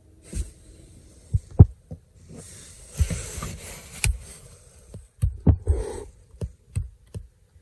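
Handling noise close to the microphone: irregular soft low thumps, the loudest about a second and a half in, and a rustling scrape around three seconds in, as fingers knock and rub against the plastic dashboard trim around the tweeter.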